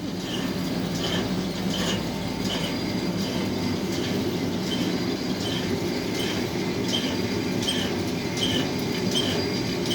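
Lathe running steadily, with a short high squeak repeating about every two-thirds of a second.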